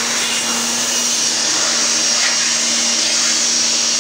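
Handheld electric air blower running steadily with a high whine, blowing dust out of a variable frequency drive's power module.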